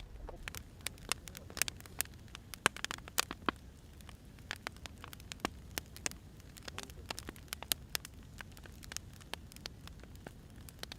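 Burning firewood crackling, with irregular sharp pops over a low steady rumble of the fire.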